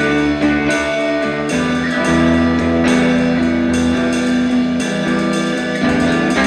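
Instrumental rock band music: guitars over bass and drums keeping a steady beat, with no singing.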